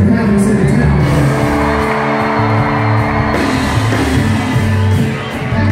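Live country band playing loud through a festival PA, guitars and drums with singing, and whoops and shouts from the crowd. A held chord rings through the middle.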